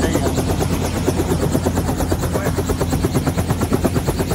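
Helicopter running close by, its rotor blades beating in rapid, even pulses over a steady low engine hum.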